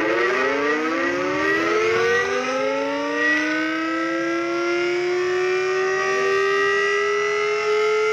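Warning siren winding up: a loud wail that starts suddenly and rises steadily in pitch, levelling off near the end.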